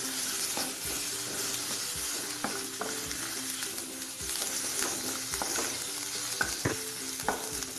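Paneer and onion stuffing sizzling in an oiled pan while a spoon stirs and scrapes it, giving short scraping strokes over a steady sizzle.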